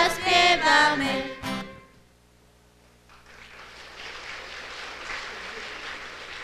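Young singers with guitar accompaniment finishing a carol, the last note ending about two seconds in. After a short pause, steady audience applause starts about three seconds in.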